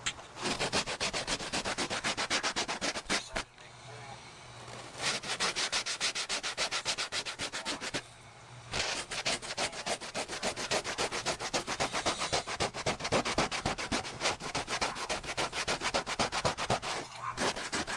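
Rapid back-and-forth rubbing strokes on a car headliner board, several a second, with two brief pauses: the crumbled old foam backing is being scrubbed off the board down to a rough surface so the new headliner glue will stick.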